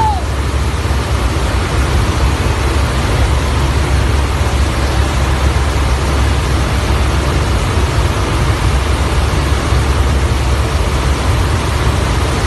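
Loud, steady drone of a military transport aircraft's engines heard from inside its cargo hold in flight.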